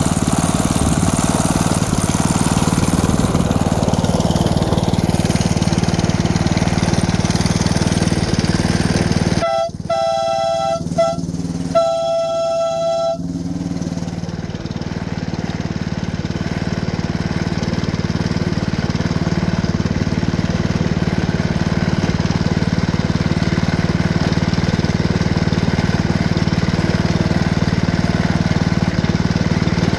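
Small gasoline engine of a belt-drive ride-on miniature locomotive running steadily under way. About ten seconds in, a horn blows twice, a shorter blast and then a longer one.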